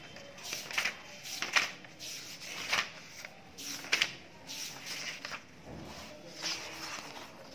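Pages of a textbook being turned one after another: a series of short, irregular paper swishes and rustles.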